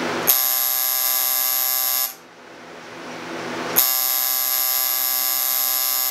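Coil tattoo machine buzzing steadily, switched on and off by a hand waved over a motion-sensor switch. It starts with a click just after the beginning, stops about two seconds later, then starts again about halfway through and keeps running to the end.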